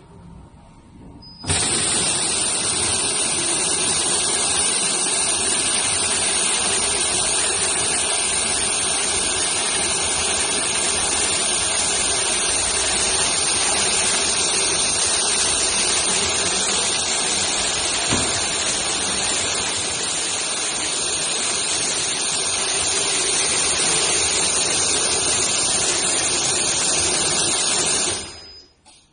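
Adhesive medical tape slitting and rewinding machine running at speed, a loud steady noise without any clear tone. It starts suddenly about a second and a half in and falls away near the end.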